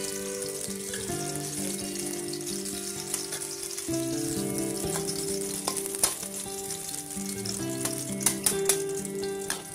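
Chopped garlic sizzling and crackling in a hot steel wok, stirred with a metal spatula that knocks against the pan a few times in the second half.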